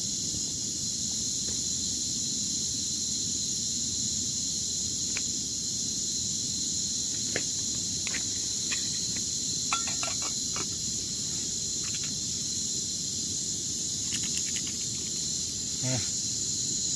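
Backpacking stove burning with a steady high hiss, with a few light clicks and clinks of camp gear.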